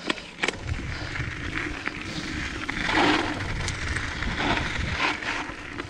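Diamondback Mission 2 mountain bike descending a rough trail: tyres rolling and crunching over dirt and rock, with sharp knocks from the bike over bumps near the start and about two-thirds in, over a low rumble. The rush is loudest about halfway through.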